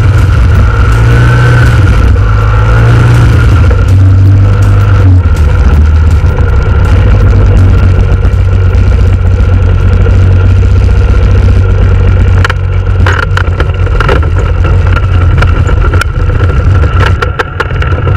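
Paratrike engine running steadily, loud on the onboard microphone, its pitch wavering slightly in the first few seconds. From about twelve seconds in, a run of sharp knocks and rattles comes through as the trike touches down on the grass.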